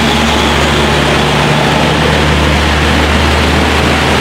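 Heavy diesel trailer truck passing close at steady speed, its engine a low drone, with tyres hissing on the wet road.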